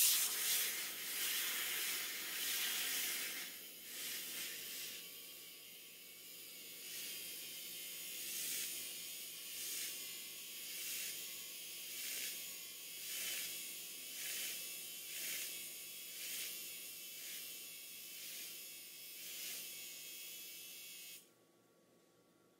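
Zulay Kitchen handheld milk frother running with its whisk in milk, whipping it into foam: a high buzzing hiss, loudest at the start, then swelling and fading about once a second. It cuts off suddenly near the end.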